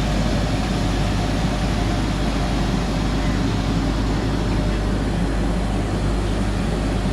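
Steady rumble and hiss of a train, even throughout, with a low hum underneath and no distinct beats or clanks.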